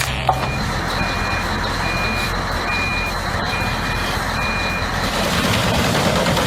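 Reversing alarm on a heavy machine beeping six times at an even pace, about one beep a second, over the steady noise of the running machine, which gets a little louder near the end.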